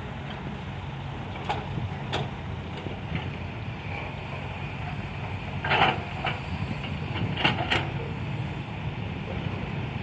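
Caterpillar hydraulic excavator's diesel engine running steadily under digging load, with short sharp clanks and scrapes of the steel bucket biting into rocky soil. The loudest clatter comes a little past the halfway point, followed by a quick pair of knocks.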